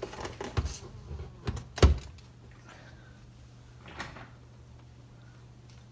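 A few knocks and clicks of a power plug and cable being handled and pushed into a socket, the loudest just before two seconds in and a faint one about four seconds in, over a steady low hum.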